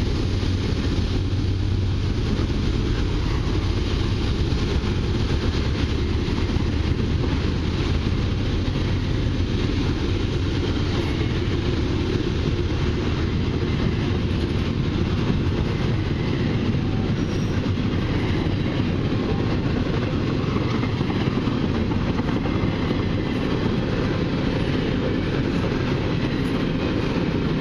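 Intermodal freight train's double-stack well cars, some loaded and some empty, rolling past at speed: a steady, unbroken rumble and rattle of steel wheels on rail.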